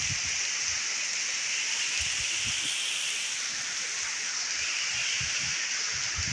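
Heavy rain falling, a steady even hiss with faint scattered low thuds of drops striking a surface.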